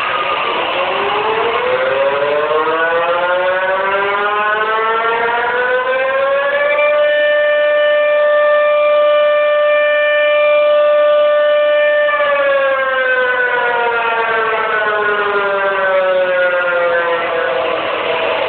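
Tsunami warning siren sounding: its wail rises in pitch over about seven seconds, holds a steady note for about five seconds, then slowly falls.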